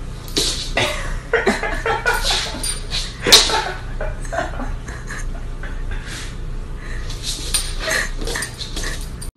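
Samoyed puppy giving short yips and whimpers, with many quick clicks and taps from it scrabbling and pouncing on a hardwood floor.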